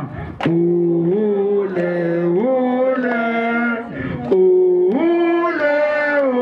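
A group of men and women singing together, holding long drawn-out notes that step from pitch to pitch, with short breaths in between.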